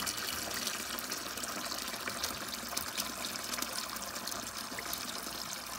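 Condensate water trickling and pouring steadily out of a furnace air handler's drain line that had been blocked, the trapped water running out as the blockage is cleared.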